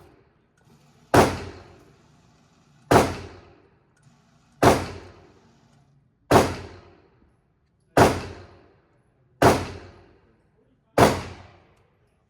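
Gunshots at an indoor gun range: seven single shots in a steady rhythm about every one and a half seconds, each cracking sharply and dying away in a brief echo off the range walls.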